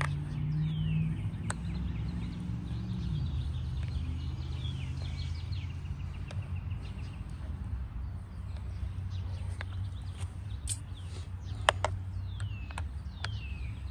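Songbirds chirping with short downward-sliding calls over a steady low background rumble. A few sharp clicks come near the end.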